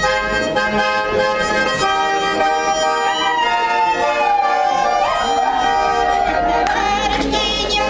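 Garmon (Russian button accordion) playing a chastushka tune in held reed chords. About three seconds in, a woman's voice comes in over it with a long sliding note.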